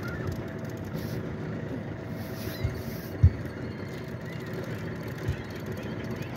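Boat motor idling steadily, with one sharp knock a little past three seconds in and a couple of fainter knocks.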